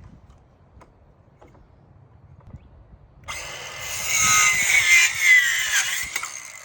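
Ryobi 18V ONE+ 4-1/2" cordless compact circular saw starting suddenly a little over three seconds in and cutting through wood, its whine dipping in pitch under load, then winding down after a couple of seconds.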